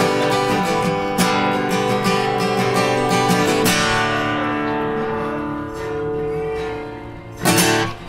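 Acoustic guitar strummed, stroke after stroke, until about halfway through, when a last chord is left to ring and slowly fade. Near the end comes one more short, loud strum that is quickly cut off.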